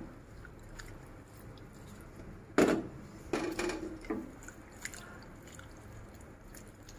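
Hand squishing raw prawns through a wet marinade of chilli powder, ginger-garlic paste and lemon juice in a glass bowl: soft squelching, with a few louder knocks about two and a half to four seconds in.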